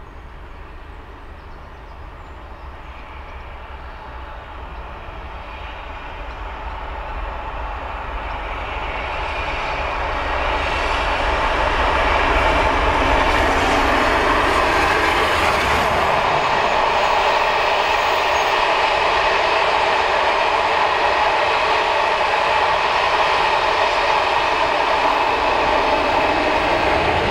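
Steam-hauled passenger train passing: the LNER A4 locomotive and its coaches grow steadily louder over about the first twelve seconds as they approach. Then comes a loud, even rumble of wheels on the rails as the long rake of coaches runs by, with the diesel locomotive on the rear reaching the camera near the end.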